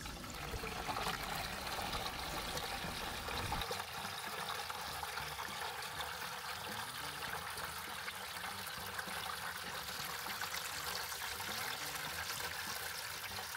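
Rinse water flowing steadily from a hose into a plastic bucket, splashing and bubbling as it fills. The water is flushing loose charcoal fines out of a newly installed whole-house carbon filter tank.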